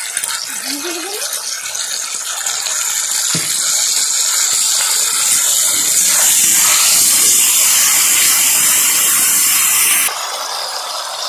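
Capsicum and onion sizzling in hot oil in a kadai while a metal spatula stirs and scrapes them. There is a single knock a few seconds in. The sizzle grows louder, then drops suddenly near the end.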